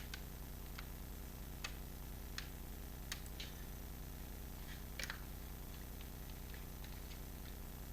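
Plastic screen bezel of a laptop lid being pressed back on, its clips clicking into place: a series of light, irregular snaps, with the loudest about five seconds in.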